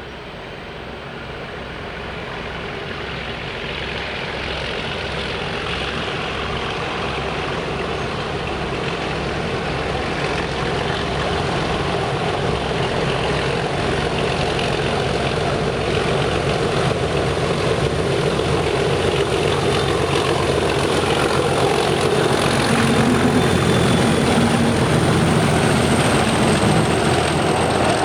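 Heritage diesel-electric locomotive engine working hard under power and drawing steadily nearer, growing louder throughout, with an even low beat and a thin high whistle above it.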